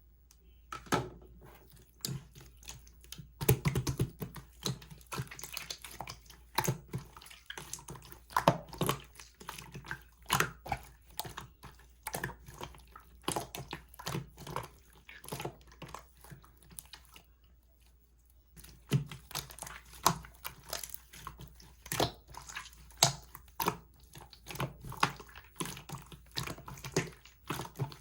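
Slime being squeezed, poked and stretched by hand: irregular wet squishing with sticky pops and clicks, pausing briefly a little past the middle.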